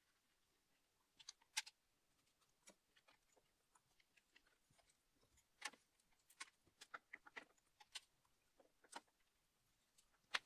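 Faint, scattered clicks and light metallic taps as a BMW N42/N46 engine's timing chain is worked by hand onto the exhaust VANOS unit's sprocket.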